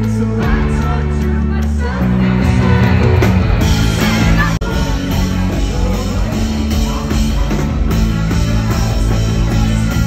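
Indie rock band playing live: guitars, bass and drums, with a sudden brief dropout in the sound about halfway through.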